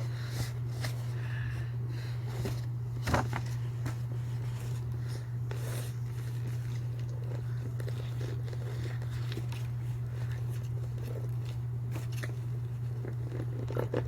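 Steady low electrical hum with scattered soft clicks and rustles of handling; the clearest clicks come about three and about six seconds in.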